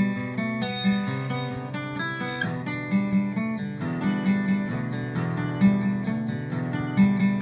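Acoustic guitar playing a verse riff: single notes picked one after another over held chord shapes, letting them ring together, in a steady flowing rhythm.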